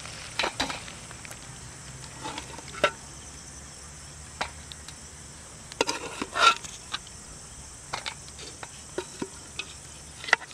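A metal spoon scraping and clinking against a steel pot and plate as thick curry is served, a dozen or so short knocks and scrapes. Crickets chirr steadily and high-pitched behind it.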